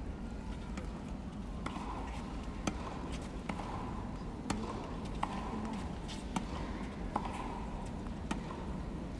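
Tennis balls struck by rackets and bouncing on a hard court in a warm-up rally: a string of sharp pops about once a second, starting a second or two in, over steady arena background noise.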